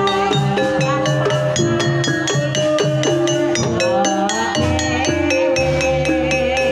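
Banyumasan gamelan playing a tayub gending: a quick, steady run of ringing struck tuned notes over a low drum part, with a sinden's voice gliding above it.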